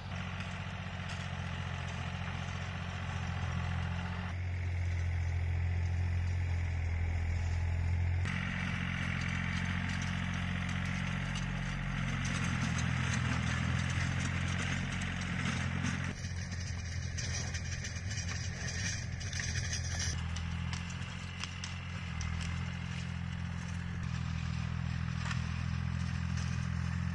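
Small farm tractor's engine running steadily while it pulls a rotary tiller through a field, with a low hum and a light rattle. The tone shifts abruptly every few seconds.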